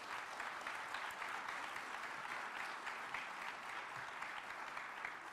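Audience applauding, a steady patter of many clapping hands that begins to fade near the end.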